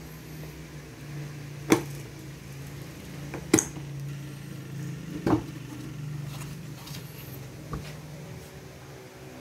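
Sharp plastic clicks of a Bosch hard tool case's red latches being snapped open and the lid lifted: three loud clicks about two seconds apart, then a fainter one near the end, over a steady low hum.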